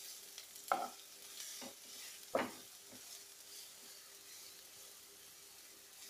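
Chopped onions frying in hot oil in a nonstick wok with a faint sizzle, stirred with a spatula: a few short scrapes against the pan in the first three seconds, the loudest about two and a half seconds in.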